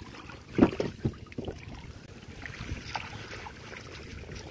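Water splashing and sloshing as a fine-mesh net full of river prawns is handled, with one louder splash about half a second in and a few smaller ones after, over a steady low rumble.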